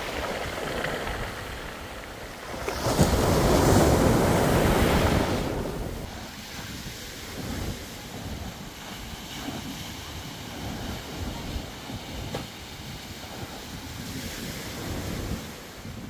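Sea waves washing onto the shore, one breaking loudly about three seconds in and a smaller one near the end, with wind buffeting the microphone.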